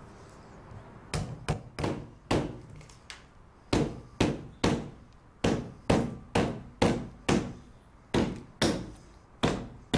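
Rubber mallet tapping a fixing bar down onto the edge of a polycarbonate awning board: a long series of dull knocks, about two a second, starting about a second in.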